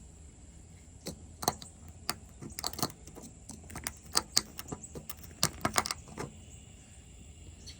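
Small 3D-printed pumpkin-shaped grinder turned by hand, crunching diamond-painting drills with a run of irregular sharp clicks; the clumped drills are being broken apart. The clicks start about a second in and stop about six seconds in.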